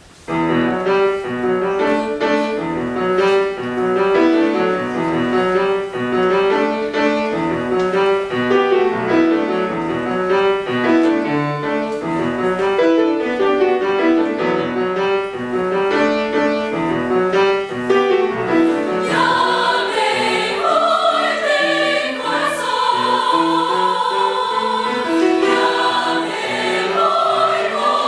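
Mixed choir of men's and women's voices singing a rhythmic, upbeat choral piece with a steady pulse, starting suddenly. About two-thirds of the way through, higher, brighter parts come in over the lower voices.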